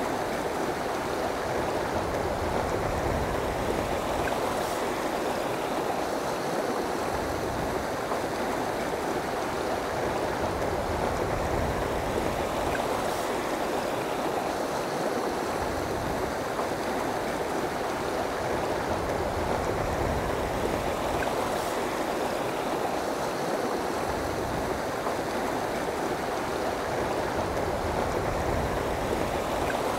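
River water rushing over and around rocks: a steady, unbroken flowing sound.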